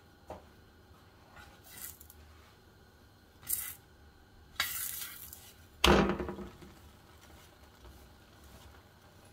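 A metal spoon scraping and knocking against a heavy chapati pan as a chapati is lifted, flipped and pressed down. There are a few short scrapes, then one loud clank about six seconds in that rings briefly.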